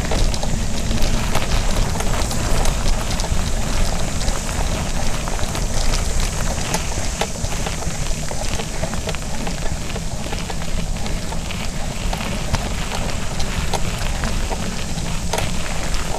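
Mountain bike rolling along a crushed-gravel trail: tyres crunching over the gravel with many small ticks and clicks, over a steady low rumble.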